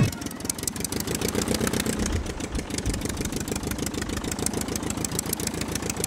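Small electric motor and plastic gearbox of a remote-control toy jeep whirring, with a fast, even rattle.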